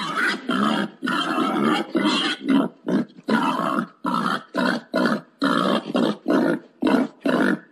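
Wild boar grunting in a rapid run of short, rough grunts, about two a second: a boar's mating call.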